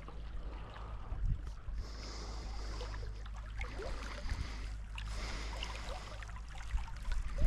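Running stream water hissing steadily, with a low wind rumble on the microphone underneath and a few light knocks.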